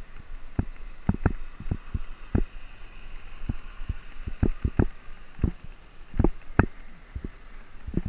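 Caloi 10 road bike jolting over a loose-stone dirt road: irregular knocks and rattles as the thin tyres hit rocks, roughly two a second, over a low rumble of rolling.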